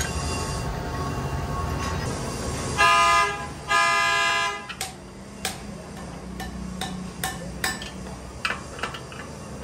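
A vehicle horn honks twice, each honk about a second long, about three seconds in. Then a hand tool clinks and taps against the steel clutch pressure plate and flywheel.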